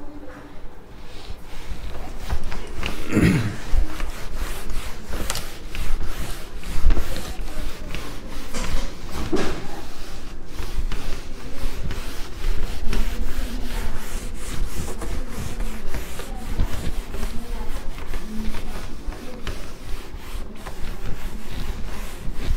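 A cloth rubbed back and forth over a whiteboard, wiping off marker writing in quick, repeated strokes.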